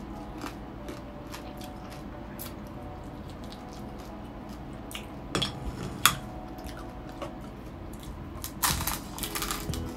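Close-up chewing of crispy deep-fried pork, with scattered crackles and two sharp cracks in the middle. A burst of loud crunching near the end comes as a fresh crunchy piece is bitten into.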